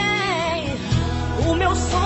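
Christian worship song sung in Portuguese over instrumental backing: a held, wavering sung note trails off in the first second, and new sung notes begin about a second and a half in.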